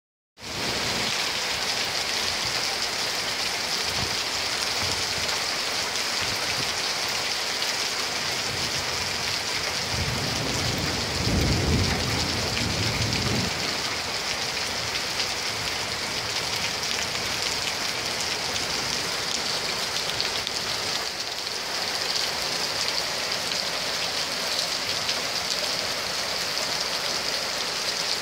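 Heavy rain pouring down on tarmac and parked cars, a steady hiss. About ten seconds in, a low rumble of thunder swells for about three seconds and fades.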